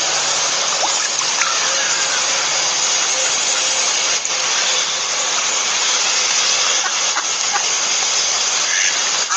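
Steady rushing of flowing water, an even loud hiss, with a few faint short chirps from birds.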